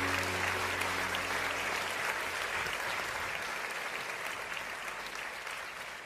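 An audience of teenagers clapping and applauding, the applause slowly fading out.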